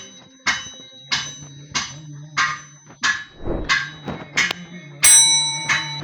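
Hammer blows ringing on metal, steady and even at about one and a half blows a second, with one louder, longer-ringing blow about five seconds in.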